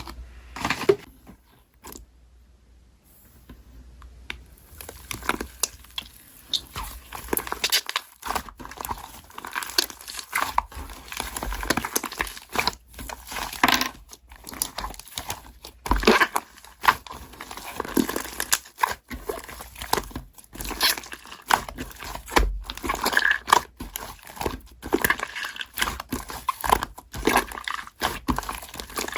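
Slime being squeezed and worked by hand, giving a dense run of irregular crackling clicks and pops. It starts sparse and becomes busier about four seconds in.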